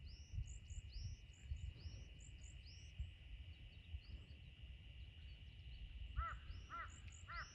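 Small birds chirping over and over in short, high rising-and-falling notes. About six seconds in, a crow starts cawing, four or five calls in quick succession. A low rumble of wind on the microphone runs underneath.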